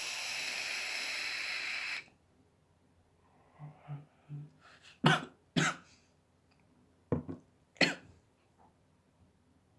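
A sub-ohm vape tank firing during a long draw, giving a steady hiss for about two seconds. A breathy exhale follows, then four sharp coughs from the harsh hit of salt nicotine vaped in a sub-ohm tank.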